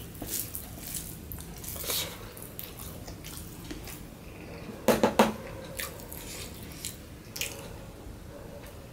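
Fingers mixing rice and mashed bharta on a steel plate, with soft squishing, light scrapes and taps against the metal, and chewing. About five seconds in come two sharp clacks, as the lid of a small plastic food box is pulled off.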